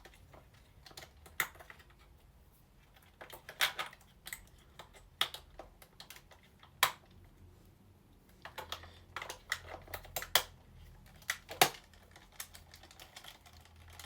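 Scattered, irregular sharp plastic clicks and knocks from handling a Buzz Lightyear action figure and pressing its buttons. No voice comes from the toy.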